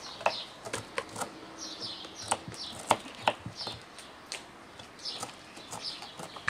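Small birds chirping over and over in short falling notes, mixed with scattered sharp clicks and taps from peppers being cored and handled in metal bowls.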